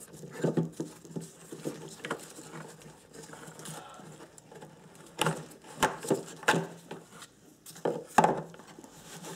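Irregular light clicks, taps and rustles of hard plastic as an HID igniter and its wire are worked loose and fished out of a headlight housing.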